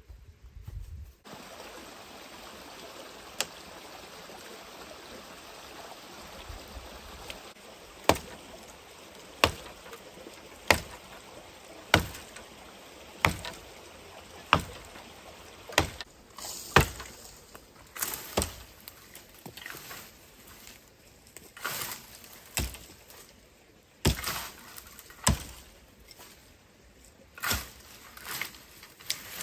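Steady running or pouring water, with a series of sharp knocks about every second and a quarter starting partway in. These give way to irregular knocks and clatter near the end.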